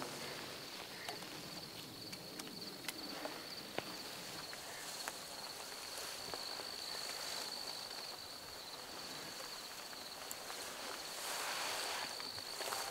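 Insects trilling in one steady high tone, with soft footsteps and rustling as people walk slowly through dry grass.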